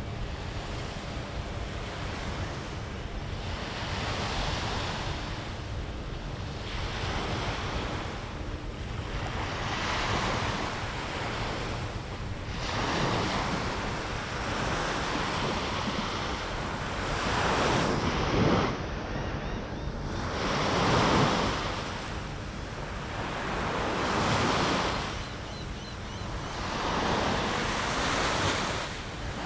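Small ocean waves breaking and washing up the sand, swelling and fading every few seconds, with the loudest a little past halfway. Wind buffets the microphone underneath.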